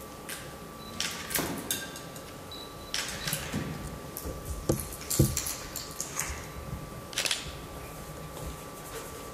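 Scattered knocks, clinks and rustles as an army flask is handled, lifted and tipped over a wooden table, with the sharpest knock about five seconds in.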